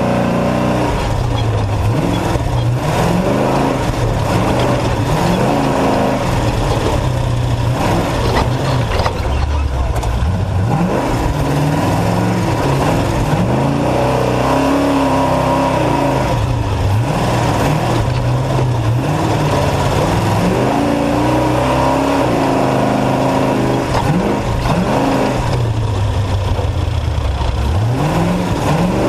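Off-road race truck's engine at race pace, its pitch climbing and dropping again and again as the throttle opens and lifts and the gears change.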